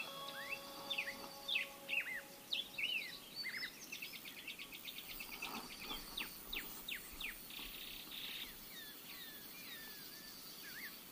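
Small birds chirping and twittering: many short rising and falling calls, with a fast trill a few seconds in.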